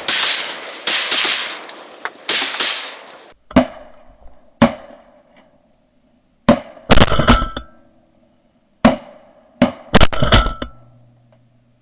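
A loud rustling noise for about the first three seconds, then a volley of shotgun shots from several hunters. There are about ten blasts over some seven seconds, several in quick pairs and triplets, each ringing out briefly.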